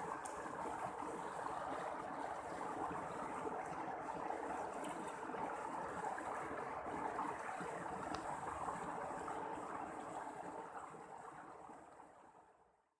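Steady rush of flowing river water, fading out near the end.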